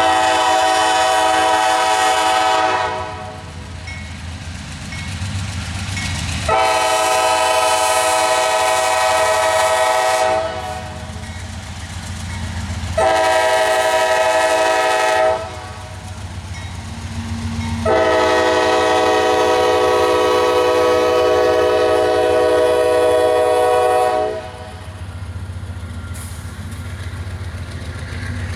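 Nathan K5LA five-chime air horn on CSX 7012, a rebuilt GE AC44CM locomotive, blowing the grade-crossing signal: two long blasts, a short one, then a longer final blast. Beneath it runs the low rumble of the approaching train.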